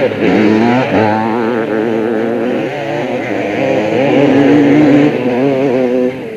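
Several motocross bike engines revving hard together, their overlapping pitches wavering up and down as the riders work the throttles. The sound drops off sharply near the end.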